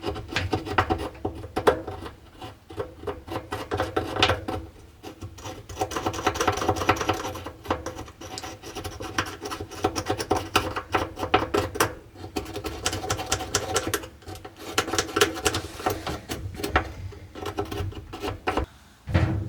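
Rapid scratching and scrubbing strokes in irregular spells with short pauses, as the lint-filter housing of a clothes dryer is scraped and brushed clean of lint.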